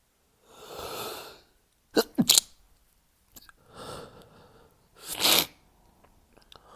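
A man's stifled sneezes during a sneezing fit. A drawn-in breath is followed by a sharp, clipped sneeze about two seconds in, then another breath and a second, longer stifled sneeze about five seconds in.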